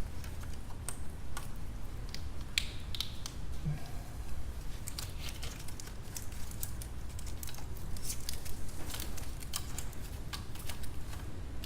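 Plastic wire loom and connectors of an engine wiring harness rustling and clicking as the harness is handled and slid out from around the engine, many small irregular clicks over a steady low hum.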